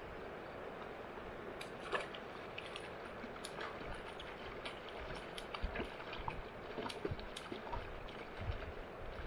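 River water flowing, a steady rush with small splashes and lapping close by, the splashes coming more often in the second half.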